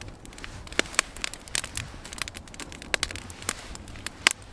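Wood fire crackling in a steel fire pit, with many sharp, irregular pops and snaps.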